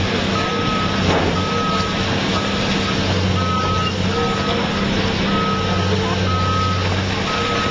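Backup alarm beeping about once a second over a diesel excavator engine running, with the steady crunch and rattle of a building front being torn down.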